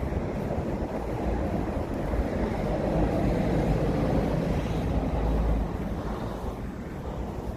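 City street traffic: the rumble and tyre noise of vehicles going by, swelling as one passes close a few seconds in and easing off near the end.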